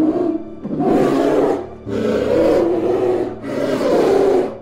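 Polar bear roaring: three long, rough roars of about a second each, after the tail of one at the very start, over soft background music.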